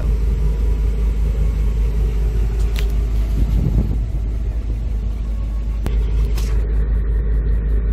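Steady low rumble of a van's engine idling, heard from inside the cabin, with a single sharp click about six seconds in.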